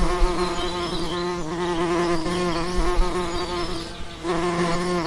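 Honeybees buzzing in a steady hum whose pitch wavers slightly.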